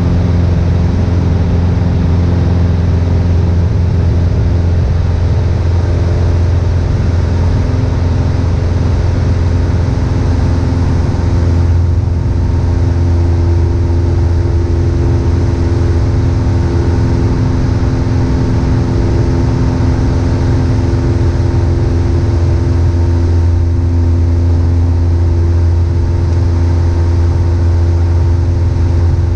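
Piper Warrior II's four-cylinder Lycoming engine and propeller droning steadily in cruise-like flight, heard inside the small cabin as a loud, even low hum with a few steady overtones.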